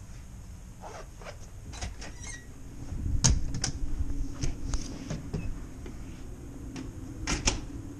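A cabin door being handled: a run of sharp latch clicks and knocks, loudest about three seconds in and again near the end, over the steady low hum of the ferry.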